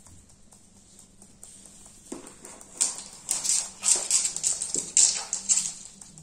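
Cockatiel's claws tapping rapidly on a wood floor as it runs, a quick irregular clatter that starts about two seconds in and is loudest in the middle.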